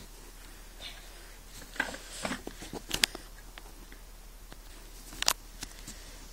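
Small handling sounds in a quiet room: a few sharp clicks and light rustling, with a cluster of clicks about two seconds in and single loud clicks near three and five seconds.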